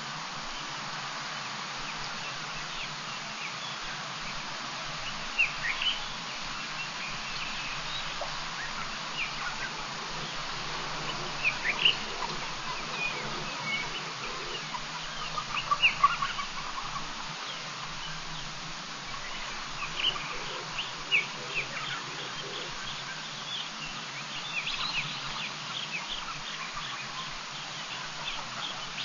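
Wild birds calling in short, scattered chirps and whistles over a steady background hiss, with a few louder calls and a busier run of chirping near the end.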